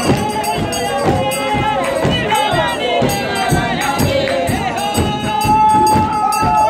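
Lively church music: voices singing a melody over a steady percussive beat of about two strokes a second, with crowd noise.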